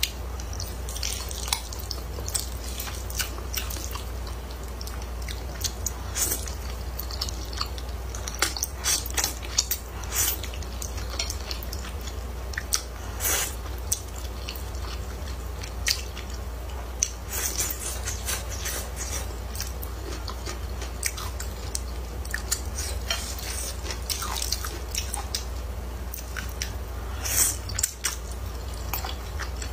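Close-miked eating of thick rice noodles in chili sauce: wet chewing and mouth clicks throughout, with several longer hissing slurps of noodle strands. A steady low hum runs underneath.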